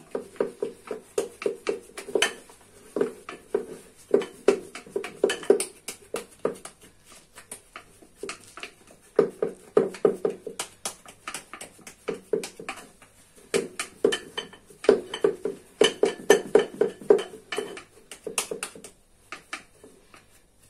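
A spoon knocking and tapping against a bowl in quick runs while fufu is molded into a portion, with short pauses between the runs.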